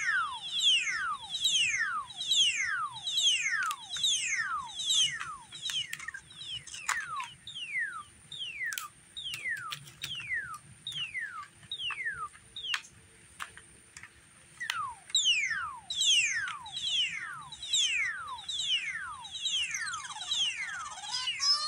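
An electronic noise instrument playing a string of falling pitch sweeps, about two a second, over a faint steady hum. The sweeps thin out and grow quieter in the middle, then come back louder and quicker near the end.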